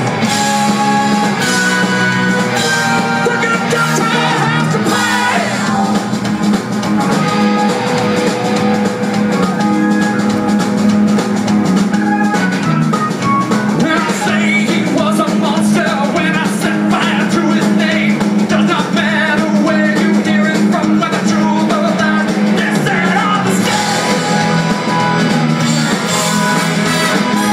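Live rock band playing loud and steady, with singing over drums and electric guitars, heard from within the crowd through a phone's microphone, thin in the deep bass.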